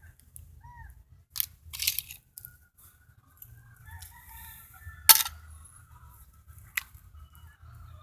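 A single sharp rifle shot about five seconds in, with a few smaller clicks around it, and chickens calling faintly in the background.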